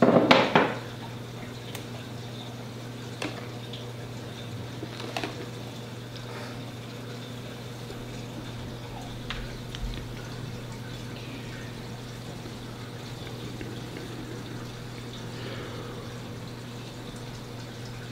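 Steady hum with trickling, running water from the room's tank pumps and filters. A brief loud rustle of a cloth snake bag being handled at the very start, and a few light clicks and knocks from handling plastic tubs.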